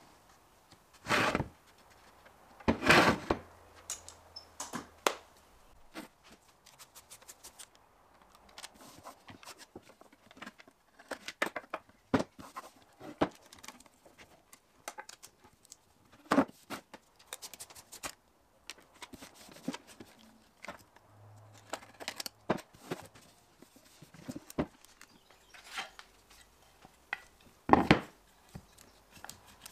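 Tape pulled off its roll in short rasps and torn, among many small handling clicks and knocks, as a plywood mould is lined with tape for resin.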